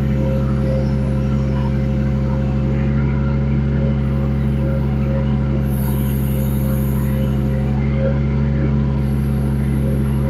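Kubota D722 three-cylinder diesel of a 1.2-ton mini excavator running steadily at raised throttle while the boom, arm and bucket are worked hydraulically. A faint high hiss comes and goes a few times.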